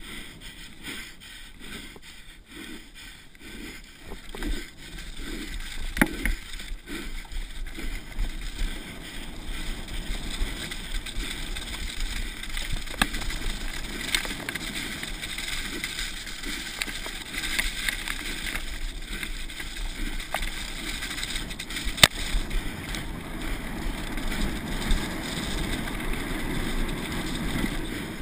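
Wind rushing over the microphone and tyre noise of a downhill mountain bike descending a dirt and grass course at speed, with a few sharp knocks as the bike hits bumps.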